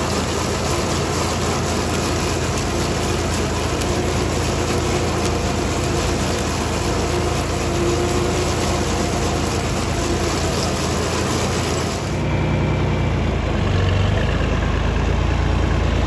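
Farm tractor engine running steadily as the tractor drives across a field towing a box spreader, with a heavy rushing noise over it that drops away about twelve seconds in, leaving the engine's low steady drone.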